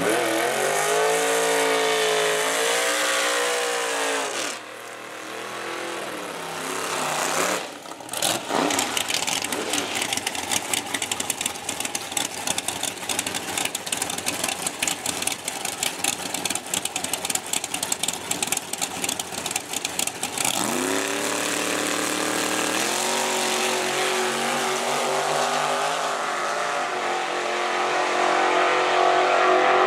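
Drag race car engines, a Camaro among them, at the start line. They rev up and down and run loud and rough for several seconds while staging, then rev up again and launch, accelerating away near the end.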